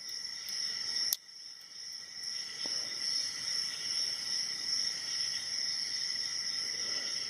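A lock pick and tension wrench working the pins of an Abus 72/40 aluminium padlock, giving a few small sharp clicks in the first couple of seconds and a faint one later. A steady high-pitched drone runs underneath.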